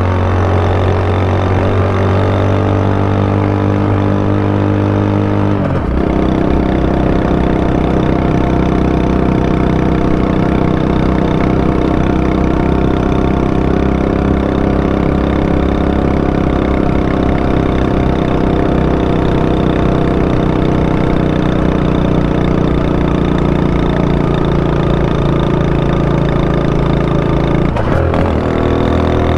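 Honda Super Cub 90's four-stroke single-cylinder engine running steadily. Its note changes abruptly about six seconds in and again near the end.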